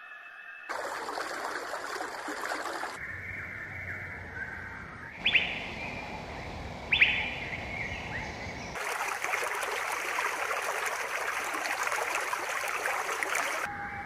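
Outdoor nature ambience that changes in abrupt steps: stretches of steady rushing noise with small birds chirping. About five seconds in and again about seven seconds in come two loud, sharp bird calls, each sweeping down in pitch.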